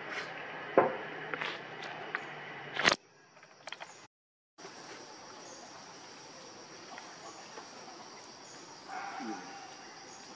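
Outdoor ambience with a steady high insect call, broken by a few sharp clicks and knocks in the first three seconds; the sound drops out for a moment about four seconds in.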